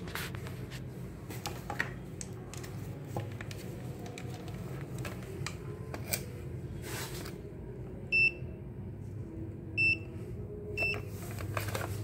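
Three short, high electronic beeps a second or so apart over a steady low hum, with light clicks and rustles of handling before them.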